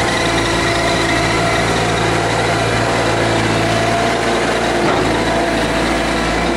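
Backhoe engine running at a steady speed.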